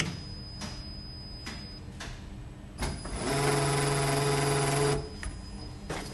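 Injection moulding machine whose hydraulic pump is driven by a retrofitted servo motor, working through its cycle: a few sharp clicks of the machine, then about three seconds in the servo pump comes up to speed into a loud, steady hum for about two seconds and cuts off suddenly.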